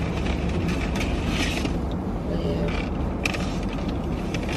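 Steady low rumble inside a parked car's cabin, with a few short rustling and creaking noises from someone moving about and handling things in the seats.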